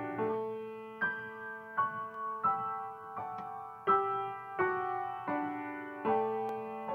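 Solo piano music played slowly, a new note or chord struck about every three quarters of a second over held low notes.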